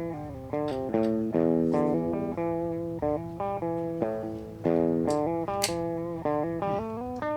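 Electric guitar playing a string of picked single notes, each with a sharp attack and a short decay, heard through an audio probe as the test signal at a point in a guitar pedal's circuit.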